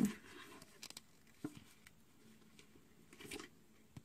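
Faint handling sounds of a strip of plastic sticky-note flags being pressed onto a notebook page: a few light taps about a second in and a soft rustle near the end.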